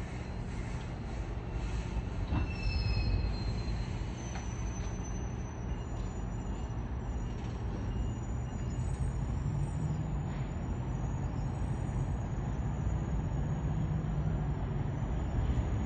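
Train out of sight on the line, heard as a steady low rumble, with a thin high-pitched squeal setting in about four seconds in and holding.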